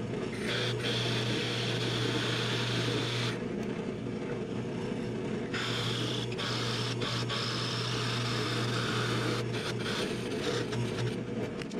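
Drill press running with a sanding drum in its chuck, sanding the inside edge of a wooden ring: a steady motor hum with a rasping hiss of abrasive on wood in two long stretches, with a pause of about two seconds between them.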